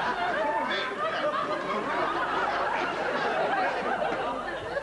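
Studio audience laughing, many voices together, steady and unbroken.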